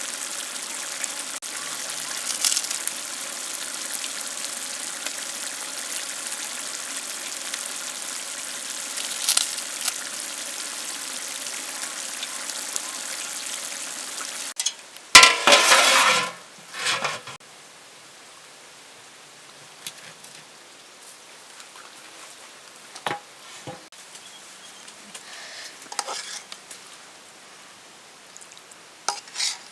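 Egg masala gravy sizzling steadily in a large pot. About halfway through it cuts off, followed by a loud brief clatter, then quiet with a few scattered knocks.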